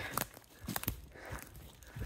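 Footsteps crunching through woodland floor litter: a handful of short, irregular crunches.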